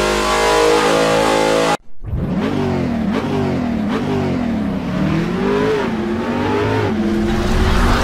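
Car engine holding a steady note, cut off for a moment just under two seconds in, then revved up and down several times in quick succession.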